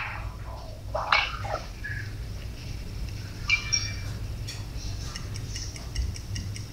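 A video-chat app's countdown timer ticking quickly, about four ticks a second, starting about four and a half seconds in, as the call's time runs out. Under it is a steady low hum.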